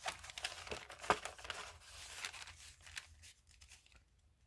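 Paper rustling and crinkling as the pages and cards of a handmade junk journal are handled, with a sharp tap about a second in. It dies down after about three seconds.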